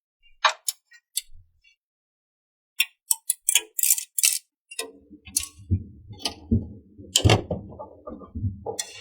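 Small plastic toy parts being handled: scattered light clicks and taps, a short rustle about four seconds in, then closer rubbing and knocking from about five seconds, with a few louder taps.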